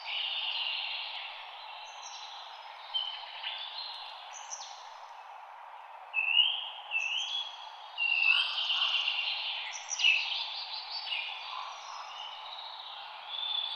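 Several songbirds calling and singing in a forest, with short rising and falling whistles and trills over a steady background hiss of wind through the trees. The calls grow busier and louder about halfway through.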